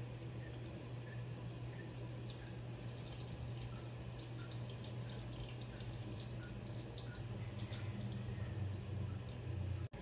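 Water and fabric softener pouring from the dispenser of a Panasonic NA-FD85X1 top-load washing machine into the drum as it fills for the second rinse, a steady splashing with a constant low hum beneath. The sound drops out for an instant just before the end.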